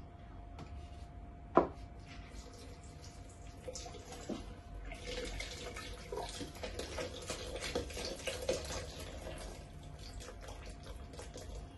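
Milk pouring from a carton into a plastic blender jug, a splashing stream that runs for several seconds in the second half. A single sharp knock about a second and a half in.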